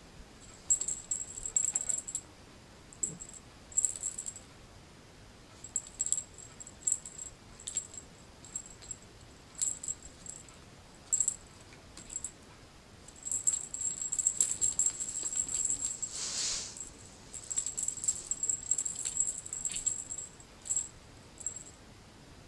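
A small cat toy rattling and jingling in short, irregular high-pitched bursts as a cat bats and grabs at it, with a longer run of rattling in the second half.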